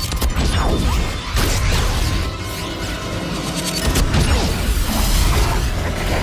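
Film action sound mix: a dramatic score under repeated crashes of shattering glass and debris, with fast whooshes.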